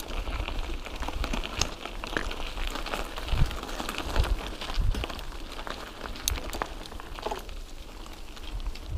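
Mountain bike riding over loose gravel and rough concrete: a constant crackling crunch from the tyres, with sharp clicks and rattles from the bike and low thumps as it jolts over bumps.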